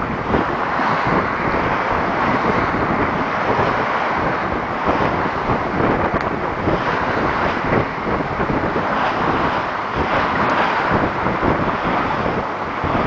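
Wind buffeting the microphone over the steady rush of water along the hull of a sailing yacht under way.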